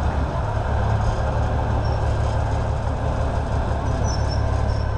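A heavy engine running with a steady, deep rumble, typical of a locomotive engine idling.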